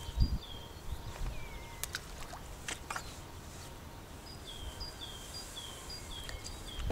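A small songbird singing a series of short repeated notes, a high note followed by a lower falling one, about two a second, pausing in the middle and starting again about four and a half seconds in. A few faint clicks come in the quiet stretch.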